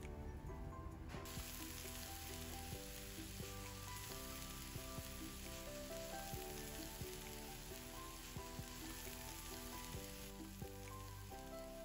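Freshly chopped spinach sizzling in a hot wok with onions as it is tipped in and stirred with a wooden spatula; the sizzle starts about a second in and eases near the end. Background music plays under it.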